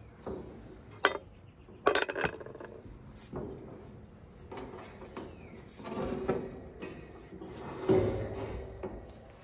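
Metal clinks and rattles of a heat pump condenser's wire fan grille being handled and worked loose. There are two sharp clicks about one and two seconds in, then scraping rattles later on.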